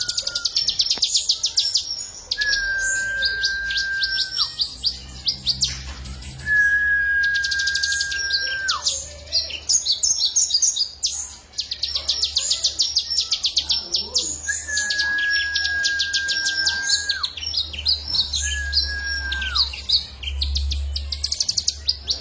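Songbird singing in loud rapid trilled bursts, the fast high 'tembakan' song valued by bird keepers, repeated many times. Several long level whistles, each about two seconds and dropping in pitch at the end, come in between.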